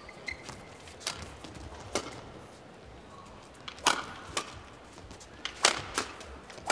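Badminton rally: rackets striking the shuttlecock in a string of sharp, irregularly spaced cracks, roughly one a second, over the low hush of an indoor arena.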